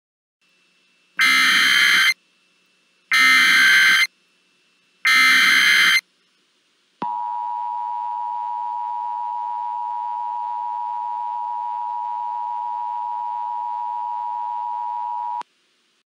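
Emergency Alert System tones opening an alert: three roughly one-second bursts of SAME digital header data about a second apart, then the steady two-tone EAS attention signal for about eight seconds, cutting off abruptly.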